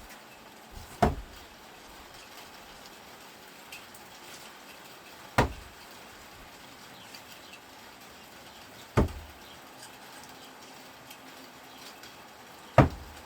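Four sharp single impacts, one about every four seconds: no-spin thrown screwdrivers striking the target one after another. Faint small ticks come between the throws.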